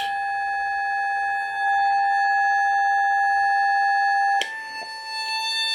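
Steady electronic tone with a buzzy stack of overtones, heard while the CB radio transmits on sideband into a dummy load to show its power output. About four seconds in there is a click and the tone steps slightly higher and carries on.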